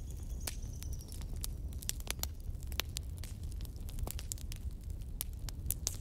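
Wood fire burning in a fireplace grate: irregular sharp crackles and pops from the logs over a low, steady rumble of the flames. A faint high whistle sounds during the first second.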